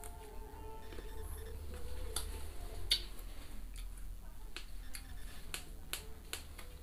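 A person chewing crunchy young ambarella (kedondong) fruit dipped in chili sambal: a string of sharp, irregular mouth clicks and smacks, the loudest about three seconds in.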